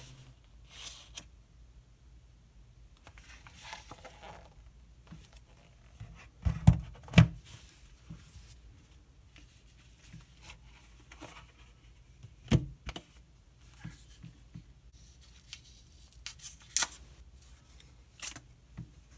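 Handling a boxed deck of cards and its cardboard box on a wooden table: light paper rustling and three sharp knocks as the box and cards are set down and moved. Near the end, the paper band around the deck is torn off with a couple of crisp rips.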